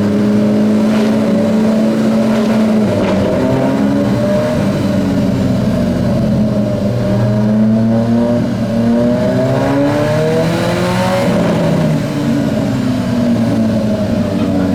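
Alfa Romeo 4C sports cars' turbocharged four-cylinder engines revving and pulling away, their pitch rising and falling again and again. There are a few sharp cracks in the first few seconds.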